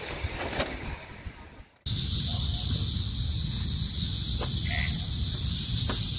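Insects chirping in short high pulses, about four a second. After a sudden cut about two seconds in, a steady, loud, high-pitched insect trill continues over a low rumble.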